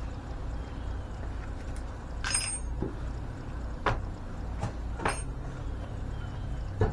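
Four short clicks and knocks, spaced a second or more apart, over a steady low rumble.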